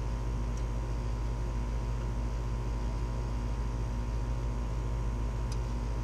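A steady low mechanical hum with a faint higher drone over it, unchanging throughout. Two faint light ticks, about half a second in and near the end.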